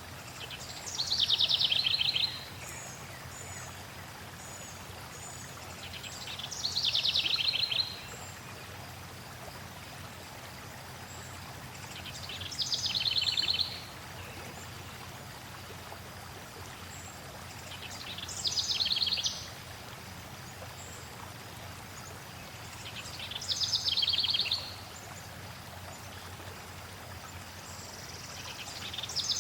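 A songbird repeating the same short song about every five to six seconds: a fast trill that drops in pitch from high to mid, about a second and a half long, heard six times. Under it runs a steady hiss of flowing water.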